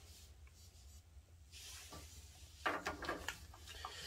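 Filter wrench turning a water-purifier interlock filter cartridge into its head to tighten it fully: a faint cluster of short clicks and rubbing from about two and a half seconds in.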